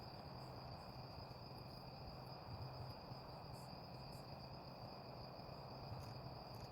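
Crickets chirping in a faint, steady, high trill, over a low steady hum.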